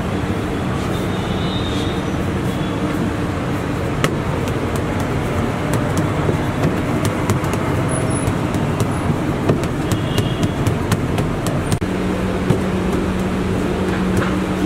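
Steady road traffic noise, with scattered light ticks and a low steady hum that comes in near the end.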